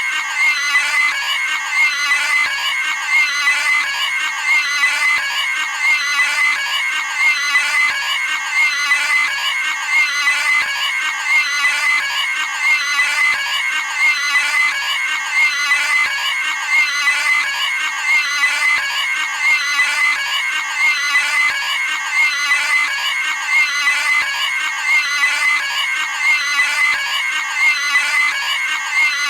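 Cartoon pig-scream sound effect looped over and over: a high-pitched squealing scream repeating about once a second.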